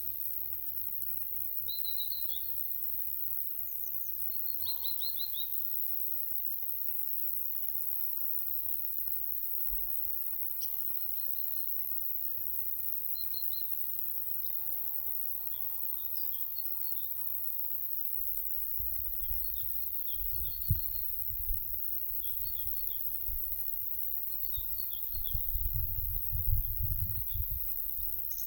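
Small songbirds chirping in short, scattered phrases over a steady high insect hiss. From about two-thirds of the way in, wind gusts buffet the microphone with low rumbles and a couple of sharp thumps, strongest near the end.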